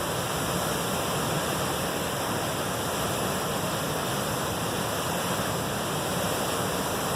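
Waterfall in high flow, a steady, loud rush of falling water pouring into a pool and rapids.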